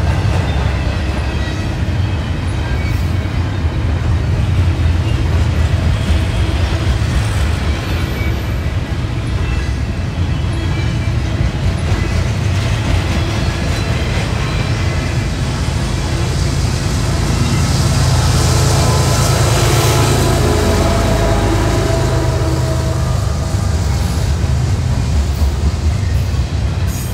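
CSX intermodal freight train rolling slowly past: a steady rumble from the train on the rails, with faint steady high tones over it that grow a little brighter about two-thirds of the way through.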